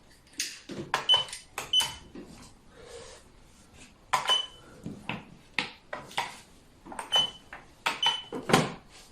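Xiangqi pieces clacking against each other and the board as they are gathered up and set out for a new game: three flurries of sharp clicks and knocks, some with a brief ring.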